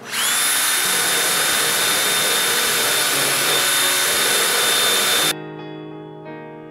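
Handheld rotary tool with a sanding drum spinning up and sanding a bocote wood knife handle to rough in its shape: a steady high whine over a loud hiss, which stops abruptly about five seconds in.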